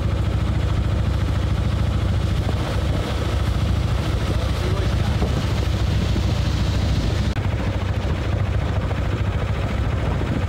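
Steady low rumble of a narrowboat's engine running under way, mixed with wind and water noise on the microphone.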